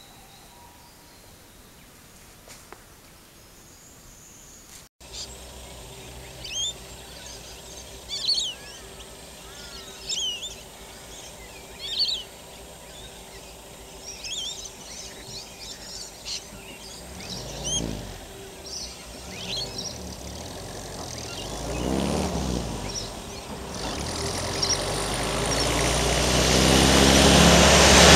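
Birds chirping and calling over a quiet rural roadside. About two-thirds in, a vehicle passes with its engine pitch falling, and then another vehicle approaches, its engine and tyre noise growing loud near the end.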